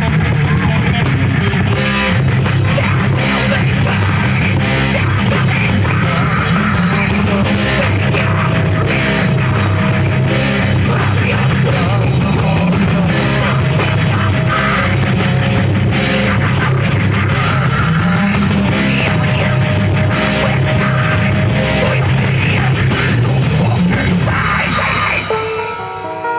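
A live heavy metal band playing loud, dense music with electric guitar. Near the end the playing drops away, leaving a few held notes ringing.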